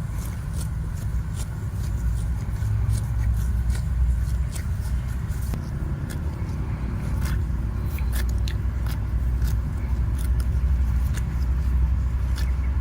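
Hooves of a herd of cattle clicking and clopping irregularly on a road, over a steady low rumble.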